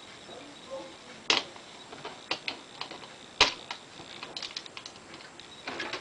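Irregular plastic clicks and taps as a ribbon cartridge is handled and fitted into the carrier of a Smith Corona SD750 electric typewriter, the sharpest click about halfway through.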